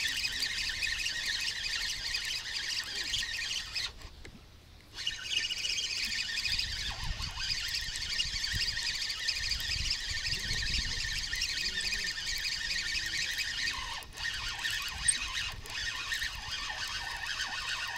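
Spinning reel being cranked steadily to retrieve a hooked crucian carp on a bent feeder rod, a continuous high gear whir with handling noise. The cranking pauses for about a second, roughly four seconds in, then carries on.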